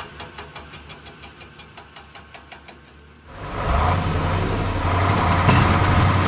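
Steady ticking, about four ticks a second, growing fainter. A little past halfway a loud engine comes in and keeps running with a steady low drone.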